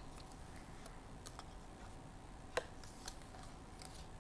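Faint clicks and light handling of stiff paper flaps being lifted and pressed on a lift-the-flap book page, with one sharper tick about two and a half seconds in.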